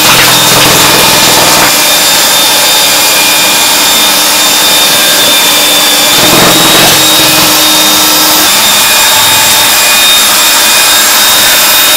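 Handheld electric drill with a paddle mixer running steadily with a high whine, churning a basin of thick starch paste as it thickens into the cooked paste for ba wan skins.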